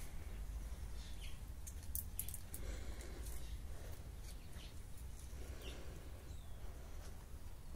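Outdoor garden ambience: a low steady rumble on the microphone, with faint bird chirps scattered through and a few light clicks about two seconds in.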